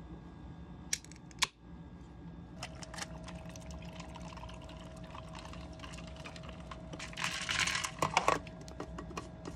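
An aluminium drink can's pull tab is cracked open with two sharp clicks about a second in. The drink is then poured into a plastic tumbler over ice, running steadily and growing louder and splashier near the end.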